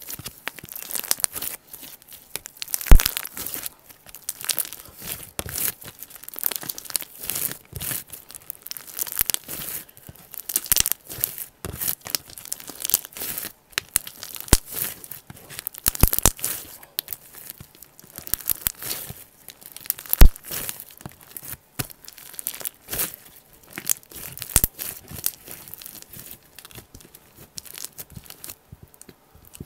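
Slime being squeezed and worked by hand, a dense run of wet crackles and pops as air bubbles trapped in it burst. Two sharp, much louder pops stand out, about three seconds in and again near twenty seconds in.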